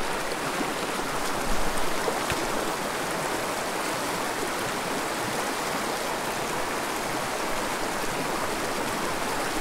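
Small mountain creek flowing, a steady rush of water, with a slightly louder patch about one and a half seconds in.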